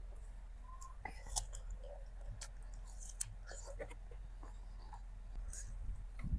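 A person chewing crunchy fruit rujak close to the microphone: wet mouth clicks and soft crunches, with a few sharper crunches.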